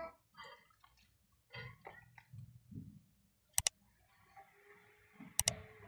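A metal spoon scraping and clinking against a metal pot and a glass baking dish as oily, half-fried chicken strips are spooned and tipped from one into the other: a few faint scrapes, then two sharp double clinks a little under two seconds apart.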